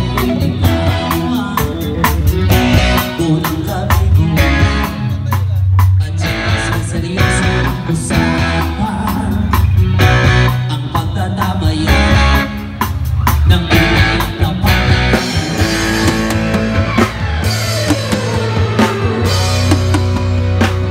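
Live rock band playing an instrumental passage: drum kit, keyboard and guitar over a strong bass line, with a falling slide near the end.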